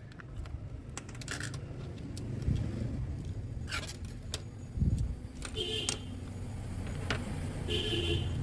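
Clicks, taps and light clinks of disassembled smartphone parts (frame, glass back cover, small circuit board) being handled and set down on a wooden table, over a steady low rumble. Two short tones sound about six and eight seconds in.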